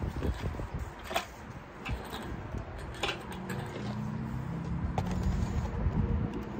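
Engine hoist being rolled across a rutted driveway with a small-block V8 swinging on its chain: a low rolling rumble broken by clinks and knocks of chain and metal. From about three seconds in a steadier low hum joins.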